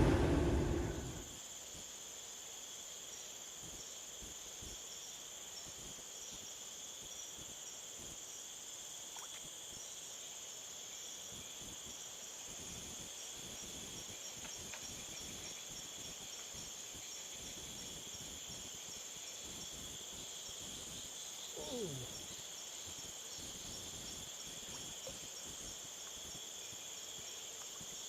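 Steady outdoor insect chorus, crickets or similar, with high, even shrilling throughout. A louder noise dies away in the first second, and a short sound slides downward in pitch about three-quarters of the way through.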